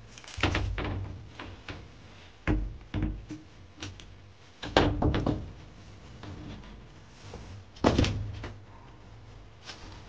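Wooden bed boards being laid back onto the bed frame's foam-padded slats: a series of separate wooden knocks and thunks, the loudest about five and eight seconds in.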